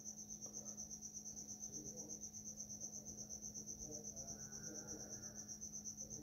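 Faint insect chirping: one steady high-pitched pulse repeating about six times a second, over a low steady hum.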